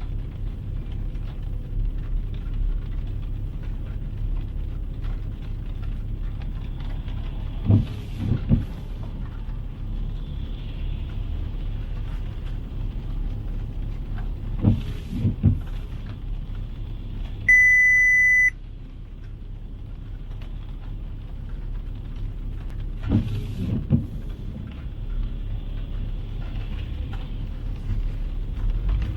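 City street ambience: a steady low rumble of road traffic, broken three times by short clusters of thuds. About two-thirds of the way in, a loud, high electronic beep sounds once for about a second.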